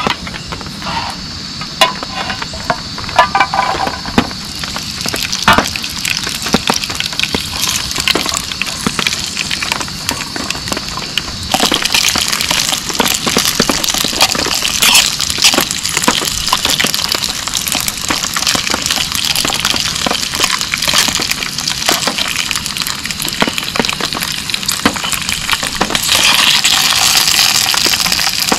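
Heavy rain falling, a dense steady crackle of drops striking close by. It steps up louder about eleven seconds in and again near the end.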